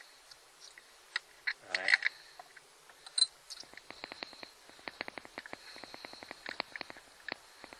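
Socket ratchet clicking in quick, uneven runs as a carburetor mounting screw is turned out from underneath. Before it there are scattered metallic clicks and taps, a brief scrape and one louder click.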